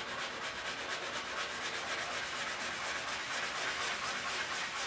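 Hand sanding with a fine-grit sanding block, rubbed back and forth over cured Bondo body filler on a Suzuki GS550 gas tank to bring the filled dent flush. The scratching is steady, then stops at the very end.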